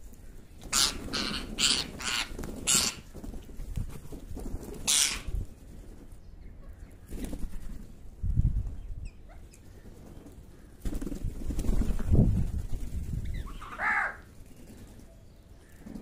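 Harsh calls from a flock of house crows and rose-ringed parakeets feeding together: a quick run of four or five short calls in the first three seconds, another about five seconds in, and a shorter call near fourteen seconds. Low rumbling fills the gaps, loudest around twelve seconds.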